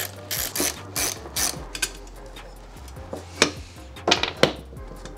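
Hand ratchet with a T30 Torx bit clicking in short bursts while the screws holding the electric window motor to the window regulator are backed out. A few sharper metal clacks come about three and a half and four seconds in.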